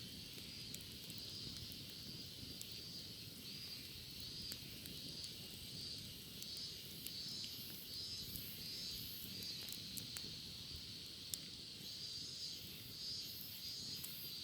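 Cicadas singing in a pulsing, high-pitched chorus, with a still higher pulsing call joining about halfway in. Scattered faint sharp crackles from a wood bonfire sound through it.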